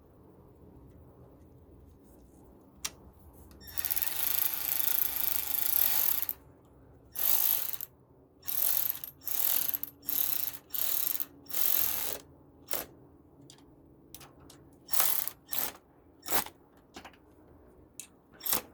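A hand ratchet wrench clicking as it is worked: one continuous run of about two seconds, then a string of short back-and-forth strokes, each a brief burst of clicks. It is being used on a fastener during refitting of a power steering hose.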